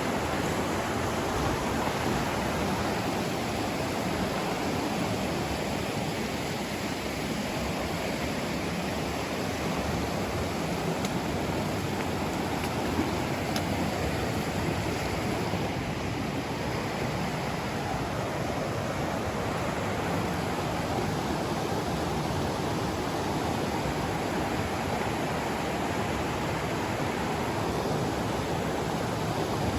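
Fast mountain trout stream rushing over rocks, a steady, unbroken rush of water.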